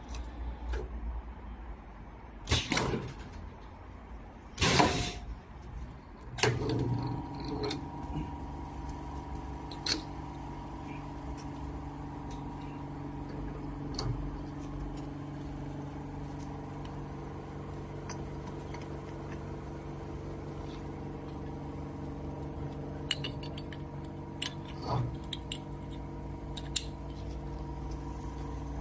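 Garage door torsion spring assembly machine at work: two short bursts of hiss, then from about six seconds in its motor runs with a steady hum, with occasional clicks and knocks over it.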